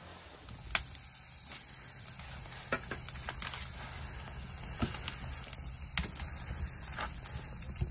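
Firewood crackling in the firebox of an ondol (gudeul) floor-heating furnace: sharp pops about once a second over a steady hiss.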